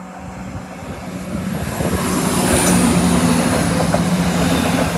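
Class 170 Turbostar diesel multiple unit approaching and passing close by: its engine note and wheel-on-rail noise grow louder over the first two seconds or so, then hold steady as the carriages go past, with short clicks from the wheels in the second half.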